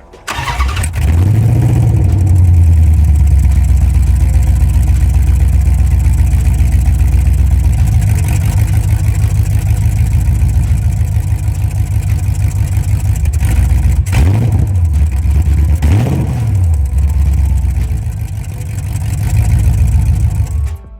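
The Dodge Charger's 5.7L Hemi V8 running loudly, its engine note mostly steady. The revs rise and fall back a few times, about a second in and again around two-thirds of the way through. The sound starts and cuts off abruptly.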